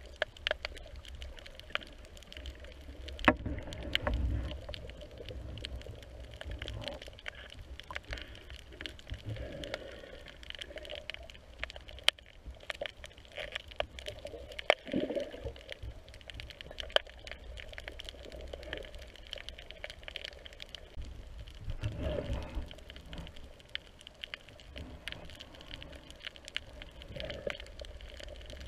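Underwater reef ambience as heard by a submerged camera: a steady crackle of sharp clicks, with low whooshes of moving water three times.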